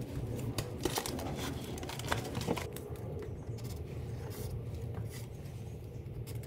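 Handling noise from a drywall panel and a blue plastic electrical box being set against the wall and traced around: scattered light knocks and scrapes, busiest in the first few seconds, over a steady low hum.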